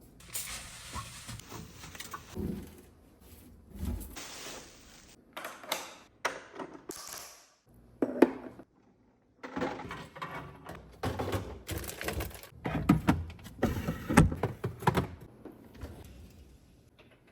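Containers and food packaging being handled during a fridge clean-out: irregular clunks and knocks with stretches of rustling, and a short pause about halfway through.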